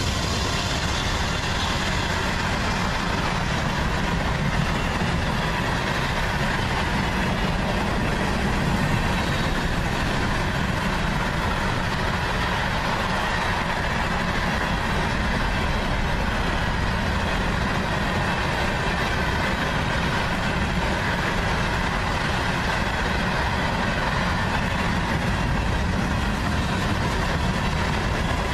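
Freight train cars rolling past close by: the steady noise of steel wheels on the rails that does not let up.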